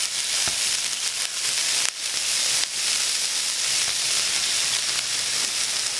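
Marinated chicken tenders sizzling steadily in hot olive oil in a skillet, with a few light clicks of metal tongs as pieces are laid in and turned.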